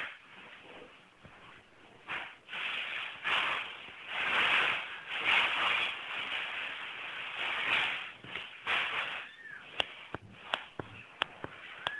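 Mother cat licking and nudging her newborn kittens on a fabric cushion, heard as uneven bursts of rasping, rustling noise. Near the end the noise gives way to a few sharp clicks and a faint short squeak.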